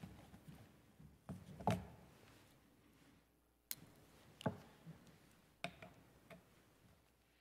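Several light taps and knocks at irregular intervals as small items are handled on a clear acrylic pulpit, picked up by the pulpit microphone.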